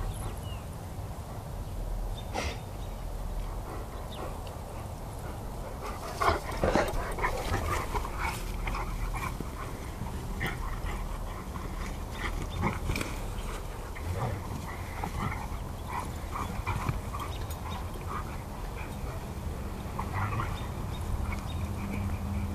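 Two Greater Swiss Mountain Dogs wrestling in play: short dog vocal sounds and scuffling, busiest and loudest about six to eight seconds in.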